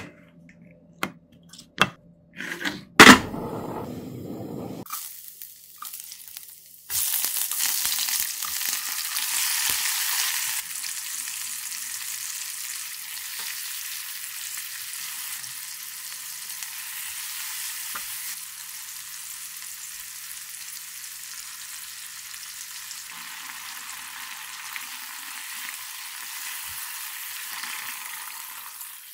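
Pull-tab sardine cans clicking and popping open with a sharp, loud crack, followed a few seconds later by a loud sizzle as food hits hot oil in a wok. It settles into a steady frying hiss while sliced onions and tomatoes are sautéed and stirred.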